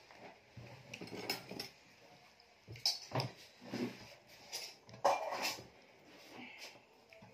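Eating rice and chicken by hand: fingers mixing and scooping rice on a metal plate, with irregular short clinks and scrapes against the plate and mouth sounds of eating. The loudest clinks come about three seconds and about five seconds in.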